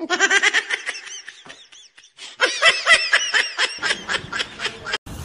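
Someone laughing in quick, rapid bursts, easing off briefly about two seconds in and then laughing harder again.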